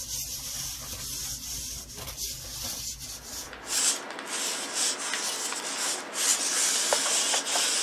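Hobby servo motors of a 3D-printed quadruped robot dog buzzing and whirring as it shifts its legs. About four seconds in, the low hum drops away and the sound becomes a rasping hiss with light taps as the robot's feet step on the floor mat.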